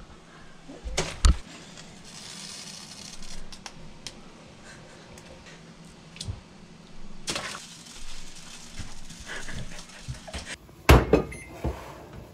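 Kitchen handling noises: scattered knocks and clinks of dishes and utensils, with a soft hiss for a couple of seconds early in, and a louder clatter of knocks near the end.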